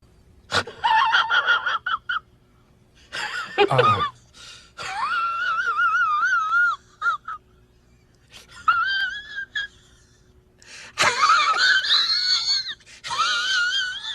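A high-pitched, voice-like sound effect in about six bursts, its pitch wavering rapidly up and down, with short gaps between bursts.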